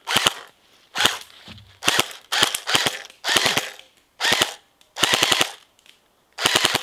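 Double Bell BY-806 AR-style electric airsoft gun firing about nine short full-auto bursts in a row, each a quick rattle of a few shots. The bursts show that BBs are feeding from its original high-capacity magazine.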